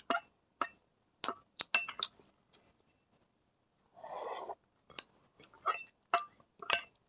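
Metal fork clinking and scraping against a bowl of instant noodles, a run of sharp clinks, with one noisy slurp of noodles about four seconds in before more clinks.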